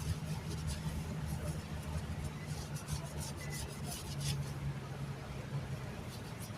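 Irregular rubbing and scraping of a tire being worked by hand, the bead being put back onto the rim after a patch repair, over a steady low hum.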